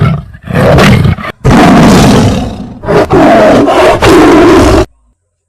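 Tiger roaring sound effect: a run of loud roars and growls in several long surges, cutting off abruptly near the end.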